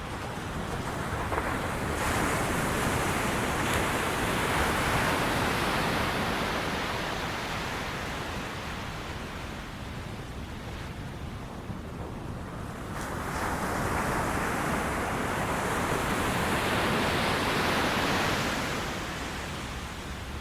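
Ocean waves on a beach: the surf rises into one long swell about two seconds in, dies back, then builds into a second swell around thirteen seconds in that fades near the end.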